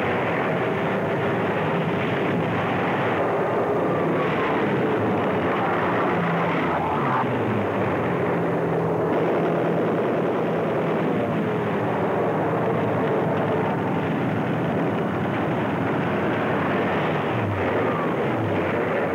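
Warplane engines droning in a dense, steady roar, their pitch sliding up and down several times as planes pass over.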